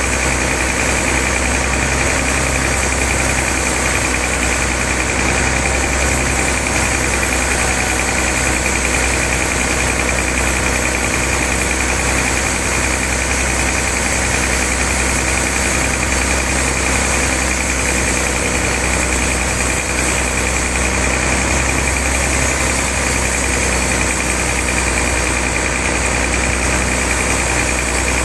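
Sawmill machinery running steadily, a constant loud engine-like drone with a steady high whine over it.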